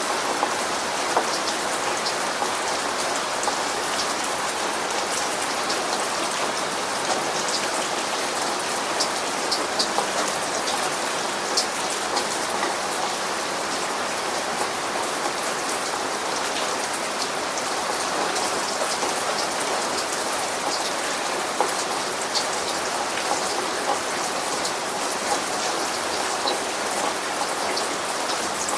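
Steady rain, a dense even hiss with many individual drops ticking sharply on a hard surface. There is no thunder.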